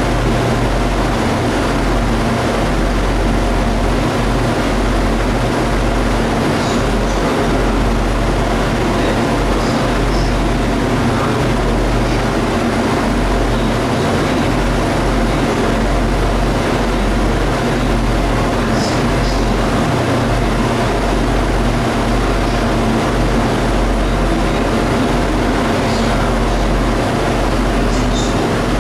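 DB Cargo Class 60 diesel locomotive with its eight-cylinder Mirrlees engine running with a steady low drone as it hauls a train of covered steel wagons, over the rumble of wheels on rail. A few faint, brief high squeaks come and go.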